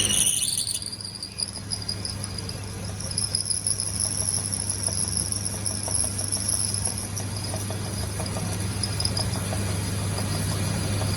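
Electric workshop machine running steadily: a constant low hum under a high-pitched whine, with faint irregular ticking.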